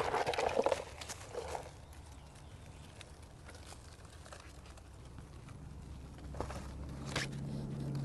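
Thin plastic nursery pot crinkling as it is squeezed and pulled off a seedling's root ball, loudest in the first second or two, followed by faint rustling and a few light taps as hands press soil into the planting hole.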